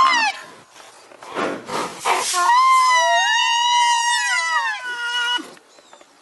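Rhinoceros calls: a high squealing call tails off, a short breathy burst follows about a second and a half in, then one long high squealing call of about three seconds that rises and falls, with a second tone overlapping it.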